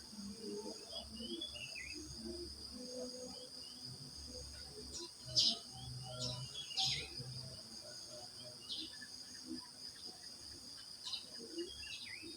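Crickets chirping steadily, with birds calling over them in short whistled notes that slide down in pitch. The loudest moments are two sharp bird calls, about five and a half and about seven seconds in.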